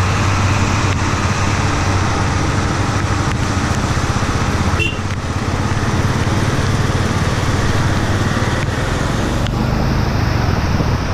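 Motorcycle engine running steadily under way on wet gravel, its low note strong beneath a steady rush of wind and road noise; the engine note eases briefly about five seconds in.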